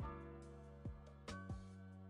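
Quiet instrumental background music with held chords and a soft, regular beat.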